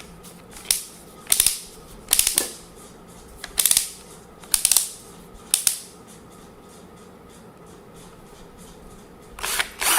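Torque adjustment collar on a cordless drill being turned by hand, clicking through its clutch settings in short runs of rapid clicks, six times in the first six seconds and again near the end.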